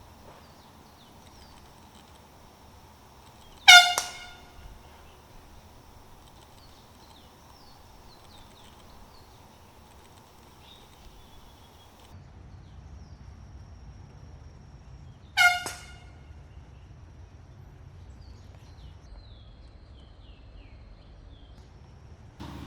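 Handheld air horn blasted twice, each a short, loud blast, the second about twelve seconds after the first.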